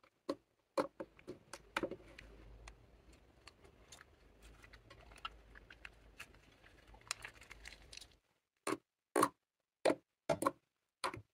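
Clear slime being worked by hand, giving sharp sticky clicks and pops. In the middle there is a stretch of softer, denser crackling. Near the end come several louder single pops.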